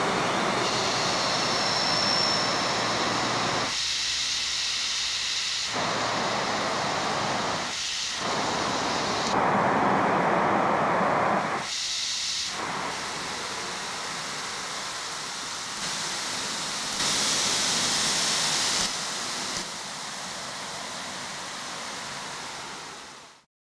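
Steady hiss of amplified outdoor background noise coming out of the Google Sound Amplifier app on an Android phone. Its tone shifts abruptly in steps as the left and right boost sliders are moved, and it cuts off near the end.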